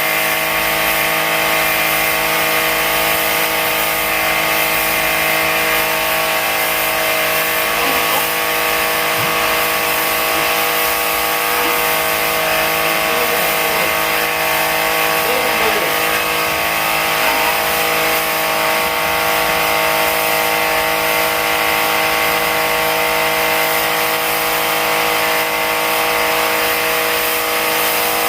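Portable electric pressure washer running steadily, its motor giving a constant hum with a whine over a wide spray hiss.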